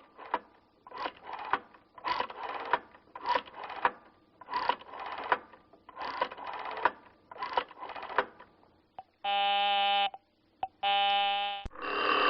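A telephone being dialled by hand: a run of short clicking bursts, mostly in pairs, for about nine seconds. Then two buzzy telephone rings, each under a second, with a louder ring starting near the end.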